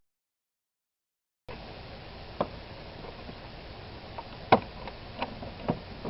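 Complete silence for about a second and a half, then a steady background hiss with a handful of sharp clicks and knocks from work on the oil pan and its drain plug. The loudest knock comes about four and a half seconds in.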